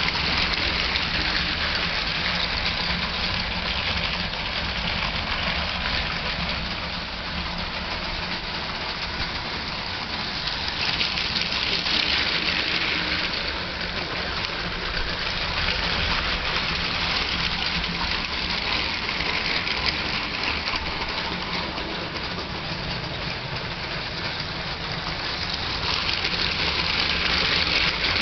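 Lego toy trains running on plastic track: electric motors whirring and wheels clattering over the rails in a steady rattling hiss that swells and fades several times as the trains come round the loop.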